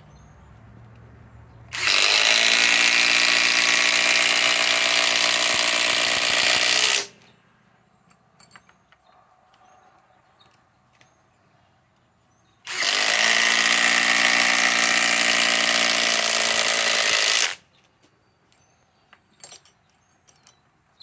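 SKIL PWR CORE 20 impact driver (1800 in-lb) hammering 6-inch TimberLOK screws into a thick wooden timber, in two runs of about five seconds each: one about two seconds in, the next about halfway through.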